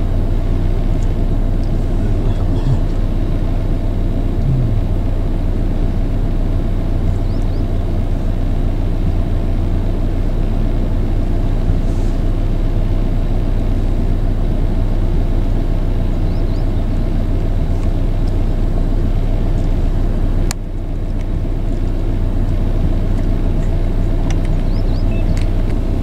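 Steady low hum of road traffic under a bridge. A sharp click comes about twenty seconds in, after which the hum is slightly quieter.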